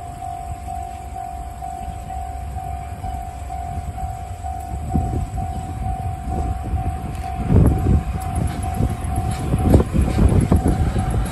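Level crossing warning bell dinging in a rapid, even rhythm while a DE10 diesel locomotive approaches with a low, building rumble. From about seven and a half seconds in come heavy thumps of its wheels over rail joints and points, loudest twice.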